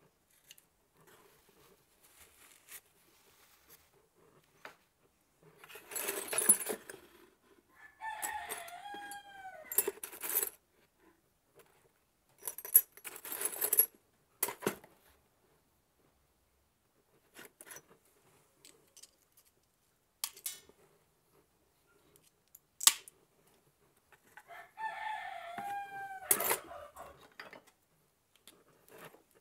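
Scattered clicks and clinks of hand-cut glass pieces and metal hand tools being picked up and set down. A pitched animal call, about two seconds long, is heard twice in the background.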